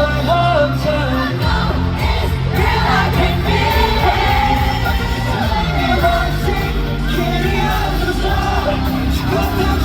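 Live pop music, the opening song of the set: a loud backing track with a steady bass line and a sung melody, with the crowd yelling over it.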